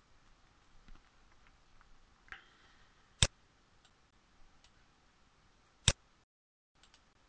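Two sharp computer mouse clicks, a little over two and a half seconds apart, over faint background hiss.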